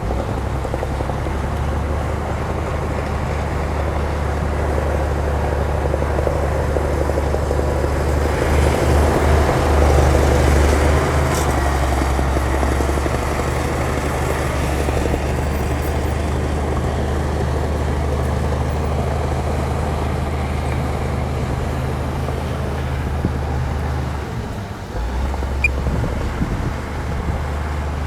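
Heavy earthmoving machine's diesel engine running steadily under work, growing louder for a few seconds about a third of the way in, then dropping briefly near the end before picking up again.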